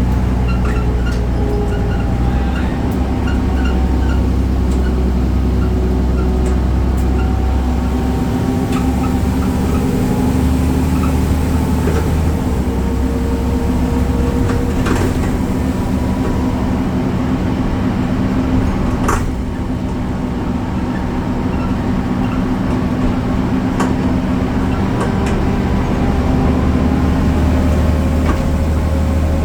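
BredaMenarini Avancity Plus city bus running, its Deutz diesel engine and ZF gearbox droning steadily, with several faint whining tones that slowly shift in pitch. A few sharp clicks, the clearest about two-thirds of the way through.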